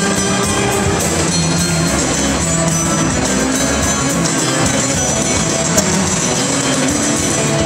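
Live instrumental music led by a plucked long-necked lute, playing a steady melodic passage over band accompaniment with no singing.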